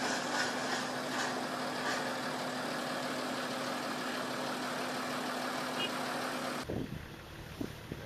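Truck engine running steadily, a constant hum over a wash of mechanical noise. About a second before the end the sound changes abruptly to a quieter low rumble with a few faint knocks.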